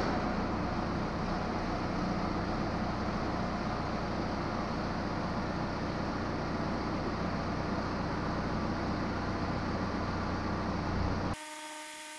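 Case 590 Super-L backhoe's diesel engine running steadily while the loader hydraulics raise and tilt the bucket, working air out of the freshly resealed bucket tilt cylinders. The engine cuts off suddenly about eleven seconds in, leaving a fainter steady tone.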